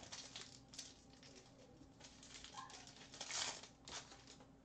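Shiny trading-card pack wrapper crinkling as it is torn open and the cards are slid out. The rustles come in faint short bursts, the loudest about three and a half seconds in.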